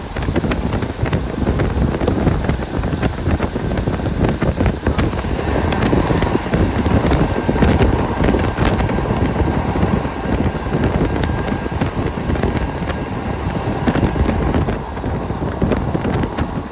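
KiHa 40 diesel railcar running steadily, its engine and wheels a continuous loud drone with heavy wind buffeting on the microphone.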